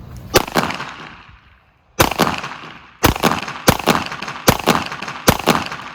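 Pistol shots: one shot, a pause of more than a second, then five more at roughly even spacing under a second apart, each followed closely by a second crack or echo.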